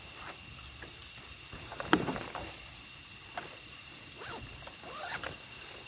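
A few short rasping scrapes of gear being handled, the loudest about two seconds in and smaller ones later.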